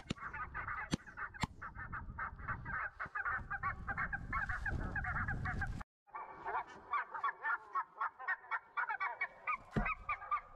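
A flock of geese honking, with many short calls overlapping. A low rumble of wind sits under the first half, and there are a few sharp clicks. The sound breaks off for an instant about halfway through, then the honking resumes.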